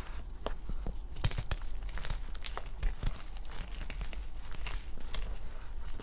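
Reformed gym chalk crunching and crumbling as hands squeeze and break it into powder, with a steady run of irregular crackles and soft gritty crunches.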